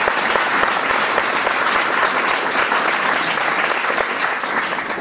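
Audience clapping steadily, a dense patter of many hands.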